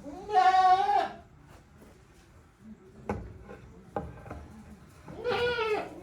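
Goats bleating: one long call right at the start and a second near the end, with a couple of sharp wooden knocks in between.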